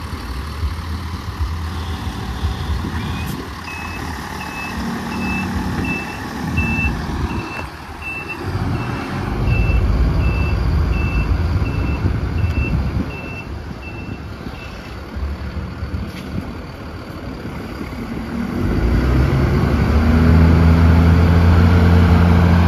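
Mercedes-Benz 1620 truck's diesel engine running while its reversing alarm beeps at about one and a half beeps a second, stopping about two-thirds of the way through. Near the end the engine gets much louder.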